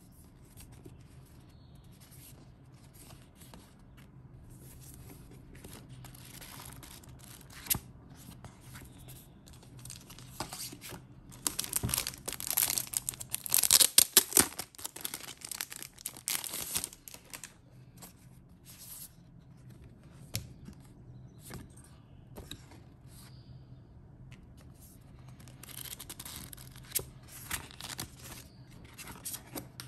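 Plastic shrink-wrap crinkling and tearing as it is peeled off a paperback book, loudest in a dense burst about halfway through, with lighter rustling and handling clicks around it. Paper rustles near the end as the book's pages are leafed through.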